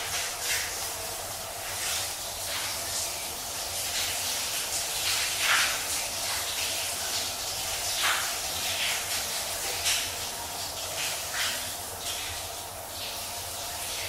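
Shower running: a steady hiss of spraying water, with irregular splashes spattering through it and a few louder splashes standing out.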